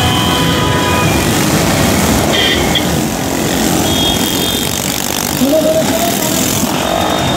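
Busy road traffic: motorcycles and trucks passing close by, their engines running together in a dense steady din. A few short high-pitched beeps sound over it, about two and a half and four seconds in.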